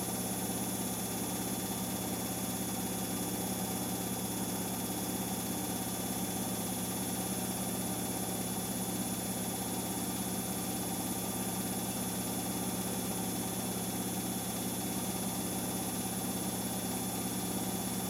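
Samsung Eco Bubble WF70F5E2W2X front-loading washing machine holding its final spin at 1200 rpm: drum and motor running steadily, a low hum with an even rush and a thin high whine, unchanging throughout.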